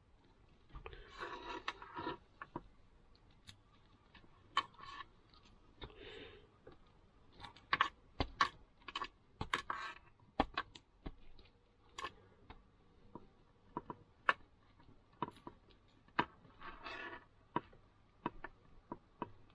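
Scattered light clicks and short scraping rustles of small metal cable connectors being handled and screwed together: SMA-to-TS9 adapter cables being tightened onto the ends of 4G antenna cables.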